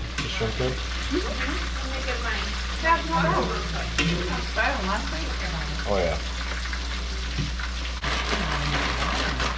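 Food frying in hot oil in a skillet: a steady sizzle, with metal tongs stirring and turning the pieces.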